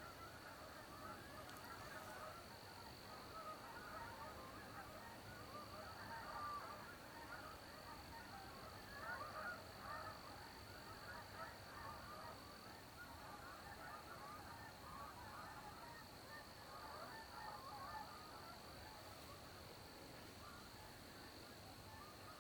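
A flock of migrating geese honking, many short overlapping calls, faint throughout and busiest in the middle.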